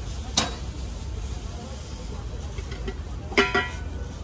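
Metal knocks at a ppeongtwigi (puffed-grain) machine: one sharp knock under half a second in, then a ringing metal clatter about three and a half seconds in, over a steady low rumble.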